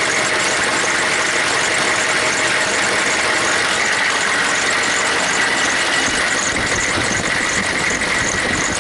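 Chevy 6.5 L turbo diesel idling loudly and steadily, heard close up with the hood open, mixed with the noise of its wastegate vacuum pump and a steady high tone. Wind rushes on the microphone throughout.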